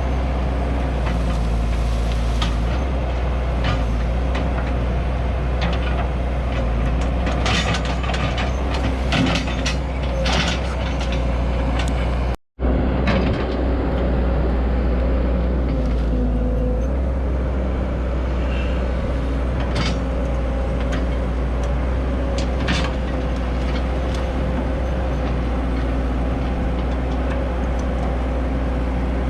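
1993 Cat E120B excavator's diesel engine running steadily under hydraulic load with a steady whine, with scattered metallic clanks and knocks from the machine working. The sound cuts out for an instant about twelve seconds in.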